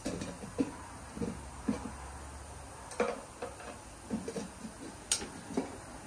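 Scattered light clicks, knocks and scrapes of a metal tire tool levering a small lawn mower tire's bead over its wheel rim.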